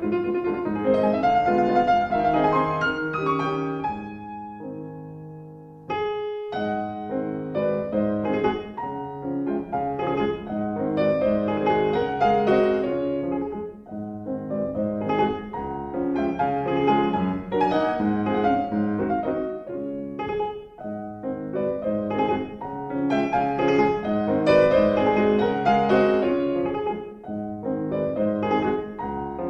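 Background piano music, a gentle melodic instrumental.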